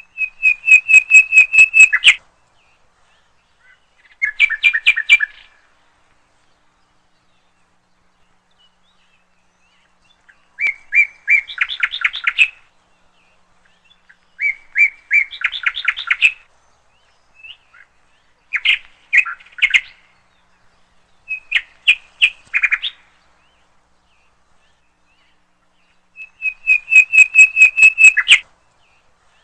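A bird singing in seven separate phrases of rapid, evenly repeated high chirps, each about one to two seconds long, with near-silent pauses between them.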